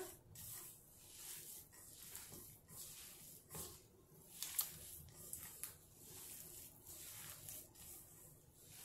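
A hand kneading and squeezing a soft kabab mix of boiled potato, peas, beef mince and noodles in a steel bowl: faint, irregular squishing.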